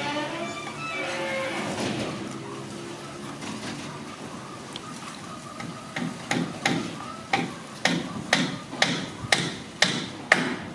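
A drawn-out low animal call in the first couple of seconds, then from about six seconds in a run of sharp knocks, about two a second.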